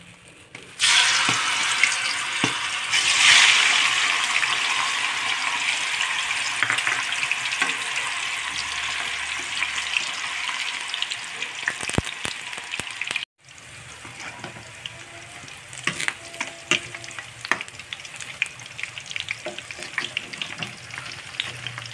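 Tofu cubes hitting hot oil in a wok: a loud deep-fry sizzle sets in suddenly about a second in and slowly eases off. After a break partway through, the nearly golden tofu sizzles more quietly, with scattered sharp clicks and crackles.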